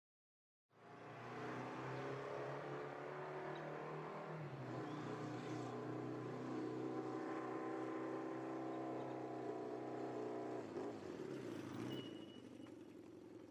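Motorcycle engine running and pulling away, its pitch dipping and climbing again twice. It gets quieter near the end.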